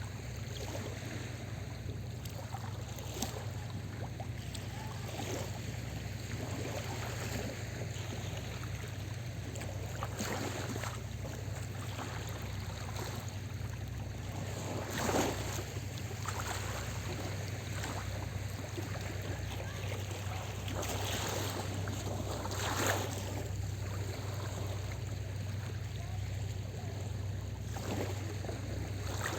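Small sea waves washing and splashing on a beach, in irregular surges with a couple of stronger splashes midway and later, over a steady low hum.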